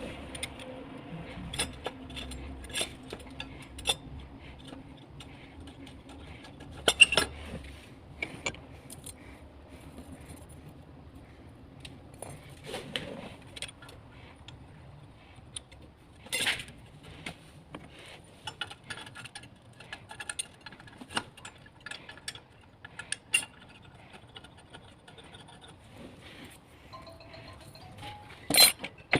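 Irregular metallic clinks and knocks, as of tools or metal parts being handled, over a faint steady hum.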